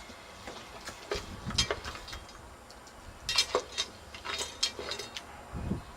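Dog drinking at a push-valve water fountain: irregular clicks, clinks and wet splashes as it laps and works the plastic valve, with a couple of duller knocks.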